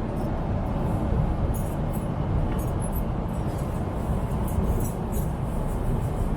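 Steady low rumble of a Boeing 777-300's cabin and engine noise, even throughout.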